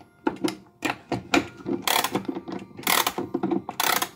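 A Howard Miller mechanical clock being wound with its key: the winding ratchet clicks in repeated strokes, the loudest about once a second, as the mainspring is wound up.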